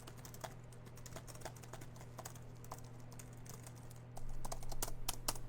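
Keys of a laptop keyboard being tapped in quick, irregular clicks, over a steady low hum that grows louder about four seconds in.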